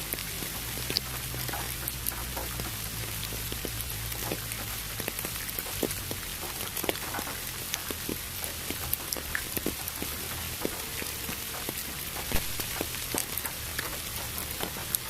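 Steady rain with many separate drops striking at irregular moments, over an even hiss of pink noise.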